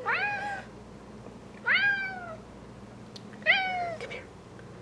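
Bengal cat meowing three times, each meow rising then falling in pitch and under a second long, about a second and a half apart.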